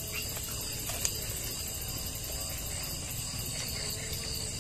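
Insect chorus of high-pitched, rapidly pulsing trills, steady throughout, with one short click about a second in.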